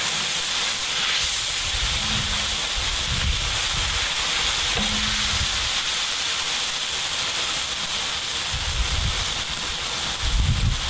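Sliced mushrooms frying in a wide black pan, sizzling with a steady hiss. A few low bumps come and go, loudest near the end.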